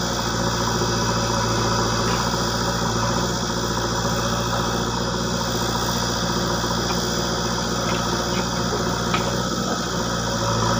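Diesel engine of a JCB 3DX backhoe loader running steadily while its backhoe arm swings and lifts a bucket of soil, with a few light clicks in the second half.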